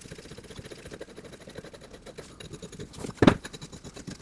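Steel grinder parts handled with gloved hands: faint scraping and rattling of metal, with one sharp metal clunk a little over three seconds in.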